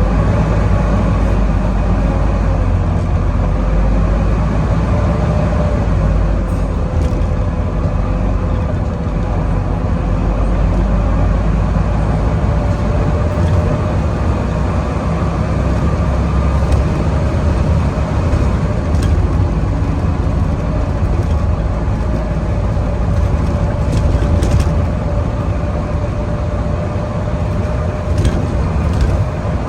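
Volvo B9TL bus's 9.4-litre six-cylinder diesel heard from on board under hard acceleration, a deep engine rumble with a steady vacuum-cleaner-like 'hoover' whine on top that holds a near-constant pitch.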